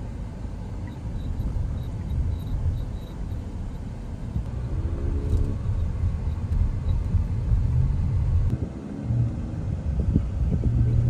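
Road rumble heard inside a moving car's cabin: a steady low drone of tyres and engine. Twice, a brief higher-pitched hum joins it.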